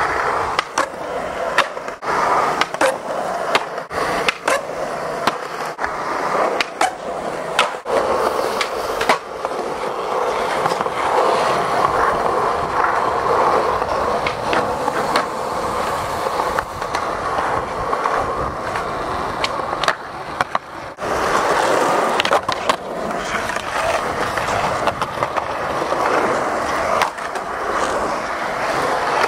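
Skateboard wheels rolling on concrete with a steady rumble, broken by many sharp clacks of the deck popping, landing and sliding into nose-blunt slides on ledges. There is a brief lull about twenty seconds in.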